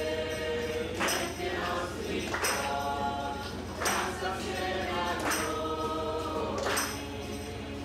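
A congregation singing a hymn together, with a sharp percussive stroke about every second and a half keeping the beat.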